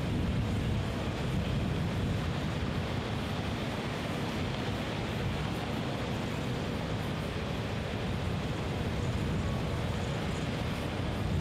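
Steady wind rumble on the microphone, with no distinct events.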